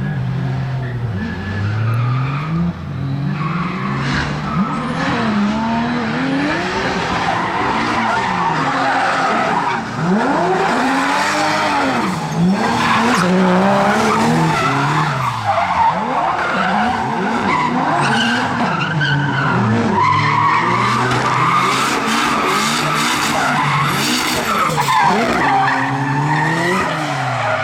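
Drift car sliding through a run, its engine revving up and down over and over while its tyres screech.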